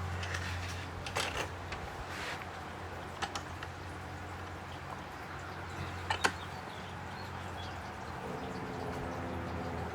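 Light, sharp clicks and knocks from handling, in three quick pairs a few seconds apart, over a steady low hum.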